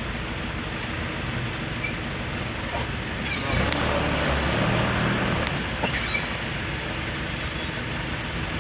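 Steady noise of slow, jammed road traffic, with vehicle engines idling close by. A louder engine comes up about three and a half seconds in and eases off about two seconds later.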